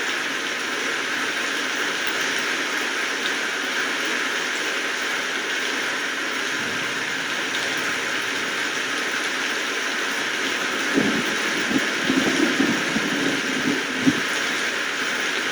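Steady rainfall, an even hiss. In the last third, a short run of low thuds.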